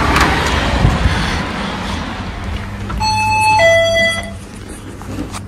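Two-note electronic door entry chime, a higher note then a lower one (ding-dong), about three seconds in, over street traffic noise.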